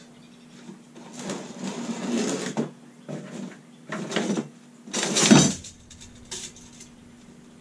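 Irregular scraping and rustling handling noises as steel square tube is measured and marked, the loudest a sharp scrape about five seconds in, over a steady low hum.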